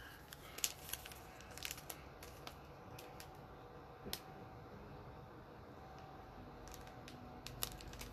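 Faint handling of trading cards and card packs: soft rustling with scattered light clicks, bunched in the first couple of seconds and again near the end.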